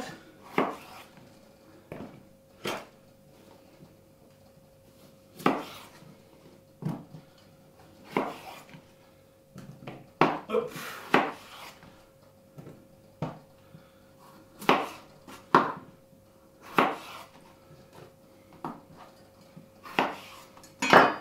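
Chef's knife cutting raw potatoes into wedges on a wooden cutting board: irregular sharp knocks as the blade goes through and hits the board, with pauses between cuts.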